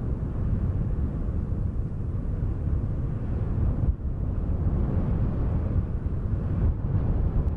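Wind blowing in gusts, a dense low rumble from an ambient wind-noise soundtrack, with a brief lull about four seconds in.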